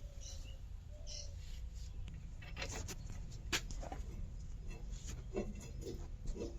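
Scattered light clicks and knocks of hand tools being worked on the tractor, irregular and spaced a second or so apart, over a low steady background hum.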